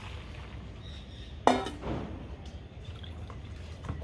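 Blanched cauliflower florets and water being poured from a stainless steel bowl into a metal colander. About a second and a half in, the bowl strikes the colander once with a ringing metallic clank.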